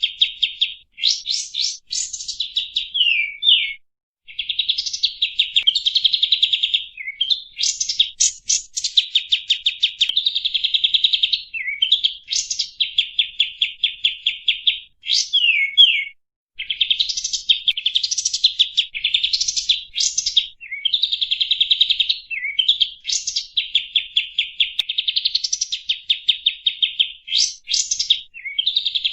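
Kapas tembak, a bulbul, singing loud, near-continuous phrases of fast chattering trills and quick down-slurred whistles, with only brief pauses. This is a lure song (pancingan) played to draw out and set off other birds.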